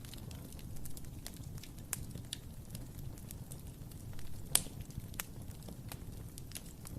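Wood fire crackling in a fireplace: scattered small pops over a soft low rumble, with one sharper pop about four and a half seconds in.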